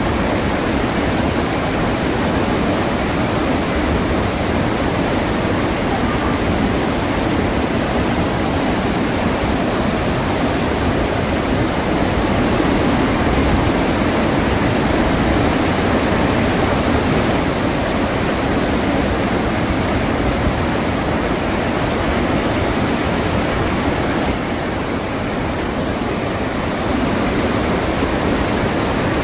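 Iguazu Falls' massive cascades pouring into the gorge: a steady, dense rush of falling water, heaviest in the low end. It turns slightly duller for a couple of seconds near the end.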